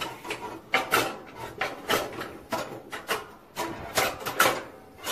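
Steel angle lever and rods of a Craftsman GT18 seat-angle plow clicking, clunking and scraping as the blade is worked through its angle positions: a run of irregular metal knocks about two a second.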